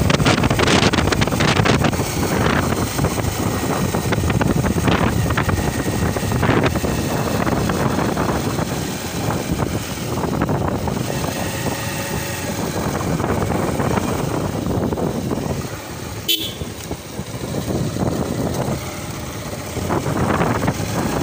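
Wind rushing over the microphone with a motorcycle's engine underneath while riding along a road. A sharp click and a brief drop in level come about sixteen seconds in.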